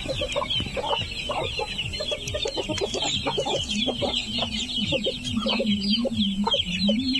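Free-range native chickens: hens give short clucks while many chicks peep constantly in high, quick chirps. A low steady hum comes in about halfway.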